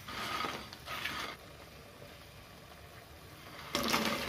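Crispy fried cauliflower florets rustling against a plate as they are gathered by hand. Near the end they are dropped into a hot pan of sauce, with a burst of sizzling and clatter.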